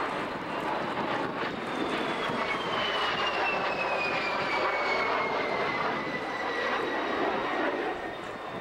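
Two US Navy jets flying past together overhead: steady jet engine noise with a whine that falls slowly in pitch as they pass.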